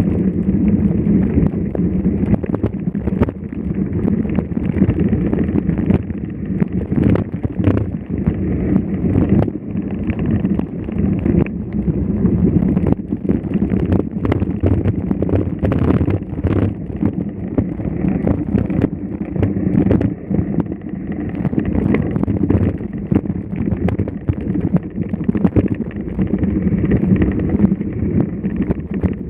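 Wind buffeting the microphone: a steady, loud low rumble with frequent short knocks throughout.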